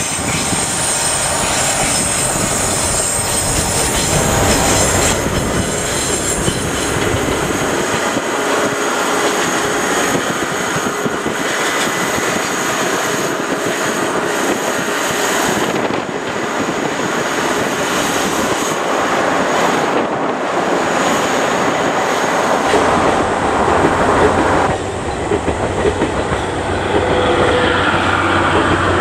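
A JNR DE10 diesel-hydraulic locomotive passes close by with its engine running loud and low for the first several seconds. Its 12-series passenger coaches follow, their wheels rattling over the rail joints with some squeal.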